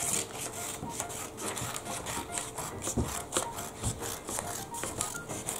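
Child's scissors snipping through paper in a quick run of repeated cuts, with paper rustling and a couple of soft knocks on the table.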